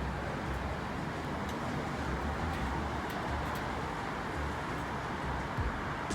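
Steady background noise of city traffic, with wind rumbling on the microphone and a few faint ticks near the end.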